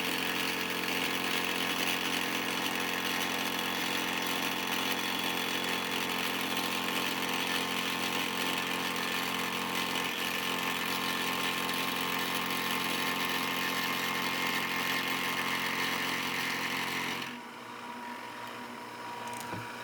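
Milling machine taking a cleanup pass across the edge of a plate: a steady mechanical hum with several fixed tones and a hiss from the cutting. About 17 seconds in it drops to a quieter, steadier hum, as the cutter comes off the work.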